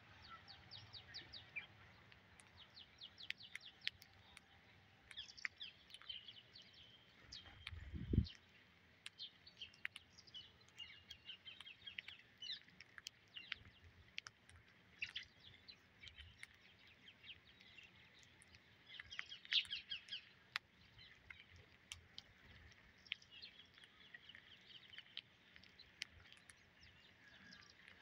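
Rose-ringed parakeets and house sparrows feeding on scattered rice: steady, quick bird chirping with many short sharp clicks of beaks pecking grains off the concrete. A dull thump about eight seconds in.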